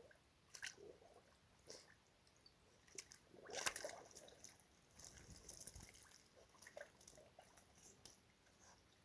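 Faint wet splashing and squelching in a shallow mud puddle: a handful of short, irregular sounds, the loudest about three and a half seconds in.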